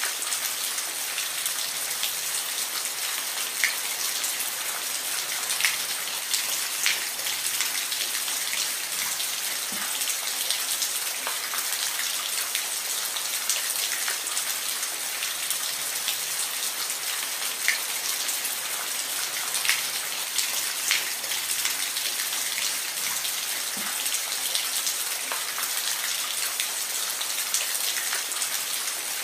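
Steady rain falling, an even hiss with many individual drops ticking sharply on a hard surface.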